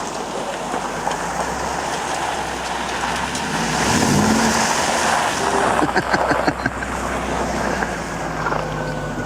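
A car driving on a muddy dirt track: the engine hums steadily under tyre and road noise, with a brief rise in engine pitch about four seconds in and a burst of rattling clicks about two seconds later.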